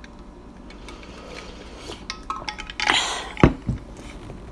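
Quiet drinking from an insulated stainless tumbler, then a short breathy rush and the tumbler set down on a wooden table with two sharp knocks about three and a half seconds in.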